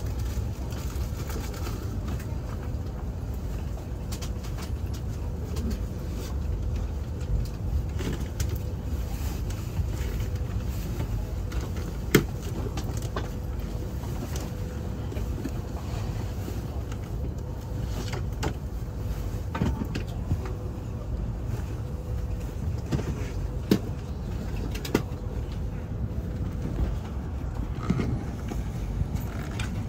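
Cabin noise of a high-speed train rolling into a station: a steady low rumble with a faint hum, broken by a few sharp clicks or knocks.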